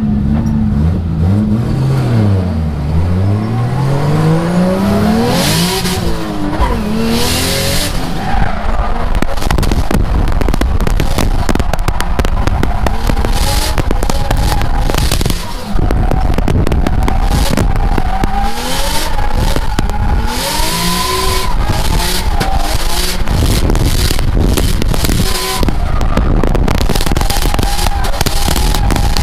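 BMW M3 drift car's engine revving hard while the car drifts, with tyres squealing, heard from inside the cabin. The engine note drops and climbs again several times in the first eight seconds as the throttle is worked.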